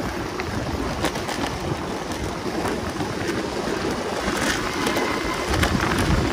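Longboard wheels rolling over city pavement at speed, with wind rushing over the phone's microphone: a steady noisy rumble broken by scattered clicks and knocks from bumps and cracks in the road.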